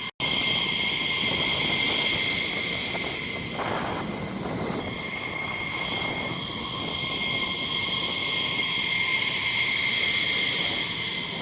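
F-15E Strike Eagle jet engines running with a steady high whine over a loud rushing noise. The sound cuts out for an instant right at the start.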